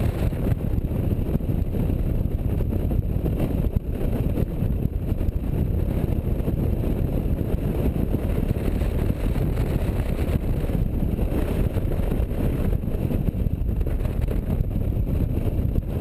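Touring motorcycle ridden at speed on a winding road: a steady, dense low rumble of engine, tyres and wind buffeting the microphone.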